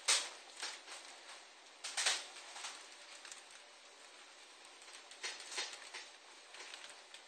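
Plastic laminate film crinkling and rustling in short, irregular bursts as it is handled on the foam plane.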